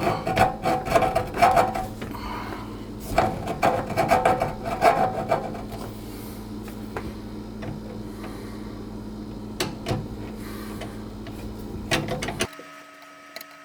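Rubbing, scraping and clicking in short runs as a dishwasher drain hose is worked onto a garbage disposal's inlet and its clamp tightened, over a steady low hum. About twelve and a half seconds in it drops abruptly to quieter room tone.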